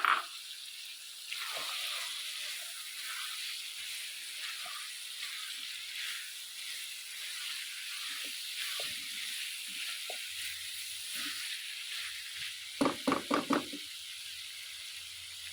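Potato and moong lentil curry sizzling in a pot, a steady frying hiss with small scattered ticks. A sharp knock comes at the very start, and four quick knocks come close together near the end.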